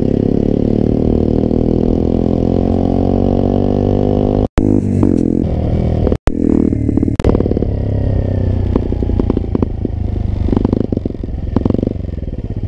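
Small single-cylinder engine of a Motrac/SkyTeam M5 minibike, falling in pitch as the bike slows down, then settling to a low, evenly pulsing idle. The sound cuts out twice for an instant, and there are a few knocks partway through.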